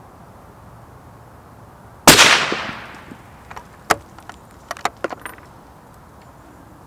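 A Sako S20 bolt-action rifle in .308 fires one shot about two seconds in, the report trailing off over about a second. Then comes a quick run of metallic clicks as the bolt is lifted and drawn back to open the action.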